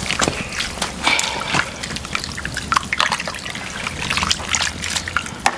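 Liquid trickling and sloshing in a pot of duck soup, with irregular small pops and clicks throughout.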